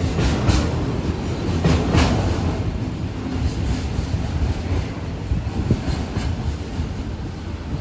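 Freight wagons of a passing train rolling by, a steady rumble of the wheels with a few sharp clacks over rail joints in the first two seconds, slowly easing as the train goes on.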